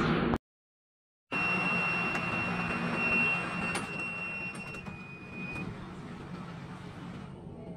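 Steady rumble and hum of a Manila MRT Line 3 train car running, heard from inside the crowded car. After a complete dropout of about a second near the start, a steady high whine joins for a few seconds, and the noise grows quieter about halfway through.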